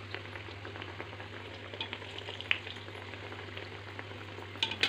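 Vadas frying in mustard oil in an iron kadhai: a steady sizzle with scattered small crackles, and a few sharp clicks near the end.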